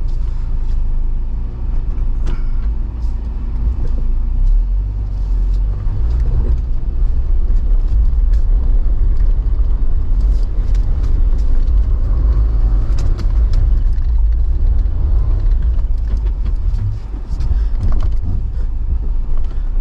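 4x4 engine rumbling low and steady as it crawls over a rock on a muddy trail, with occasional short knocks and clunks.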